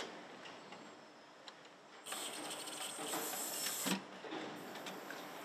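Automated engine-assembly machinery: a loud hiss with fast rattling starts about two seconds in, lasts about two seconds and ends in a clunk, over a steady low factory background.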